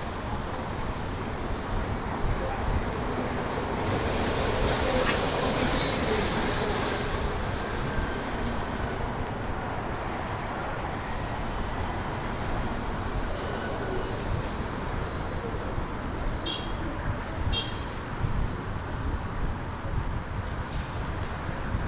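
City street traffic heard from a moving bicycle, with a steady rumble. A loud hiss swells and fades about four to seven seconds in, and two brief high squeaks come near the end.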